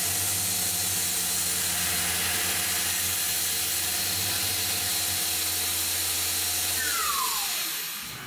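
Tormach CNC mill running its spindle and end mill around an aluminium gear, with a steady hiss from the nozzle spraying at the cut and a steady machine hum. About seven seconds in, the hiss stops and the spindle spins down with a falling whine, marking the end of the cycle.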